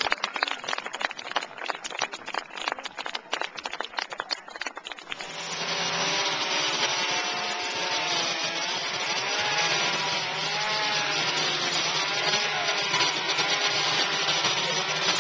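Chainsaw running steadily, its pitch wavering up and down as it cuts wood. It comes in about a third of the way through, after a patter of rapid clicks.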